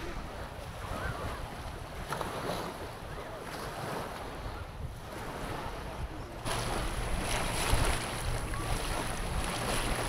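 Small waves lapping and washing up on the sandy shore of Issyk-Kul lake, with wind on the microphone. About six and a half seconds in, the wash turns louder and brighter as the waves break close by.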